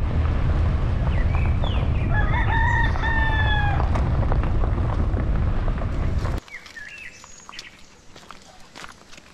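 A rooster crows once, a drawn-out call starting about two seconds in, over a loud low rumble. The rumble cuts off abruptly a little after six seconds, leaving a quiet background with a few short bird chirps.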